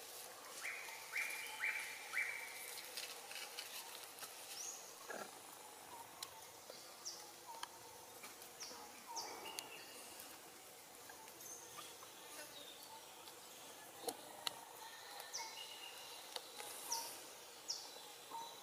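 Faint outdoor forest ambience with many short, high-pitched animal chirps and calls scattered throughout, a quick run of four in the first couple of seconds, and a few light clicks and rustles.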